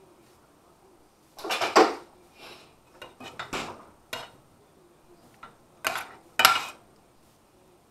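Metal spoon scraping and clanking against a stainless steel frying pan as pork and vegetables are stirred, in several separate strokes; the loudest come about two seconds in and again about six and a half seconds in.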